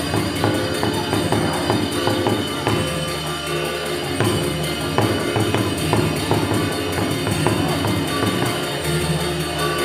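Balinese gamelan playing loudly: ringing bronze metallophone and gong tones over dense drum and cymbal strokes.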